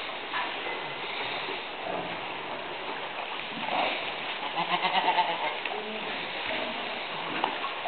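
Doe goat licking her newborn kid clean, with soft wet licking sounds and a short, low goat bleat about four and a half seconds in.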